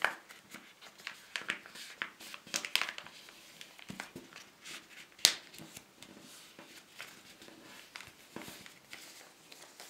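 A sheet of paper being folded and creased by hand into an origami wallet: scattered rustles and crinkles as fingers press the folds flat, with one sharper click about five seconds in.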